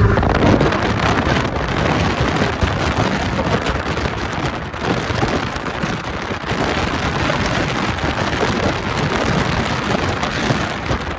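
Strong wind rushing and buffeting over a phone microphone held out of the window of a fast-moving car, a loud steady roar of air.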